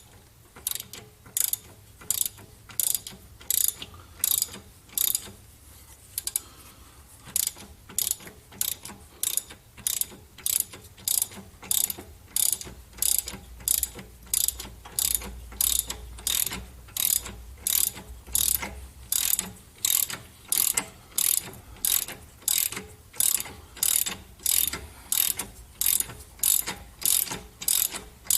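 Ratchet wrench clicking in short back strokes as it turns the forcing screw of a harmonic balancer puller. The strokes are irregular for the first several seconds, then settle to a steady rhythm of about two a second.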